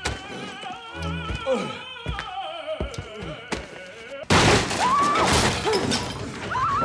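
An opera singer's voice with a wide vibrato over orchestral accompaniment, with heavy fight blows and bodies thudding against the floor and walls. About four seconds in, the sound jumps much louder and harsher.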